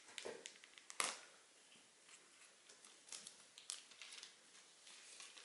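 Clear plastic wrap crinkling and rustling as it is peeled off a cardboard watch box, with a sharp snap about a second in and scattered faint crackles after.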